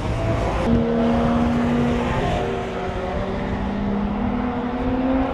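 Race cars being driven at speed past the viewing area, engines held at high revs with a steady note that creeps up in pitch in the second half.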